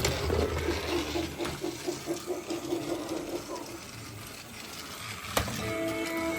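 An electronic talking toy playing a short pulsing sound effect over handling noise. Then a sharp click, likely its button being pressed, about five seconds in, and a recorded tune starts from the toy's speaker.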